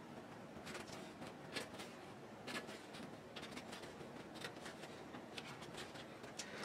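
Faint rustling and a few light ticks of headliner material being handled and stretched by hand.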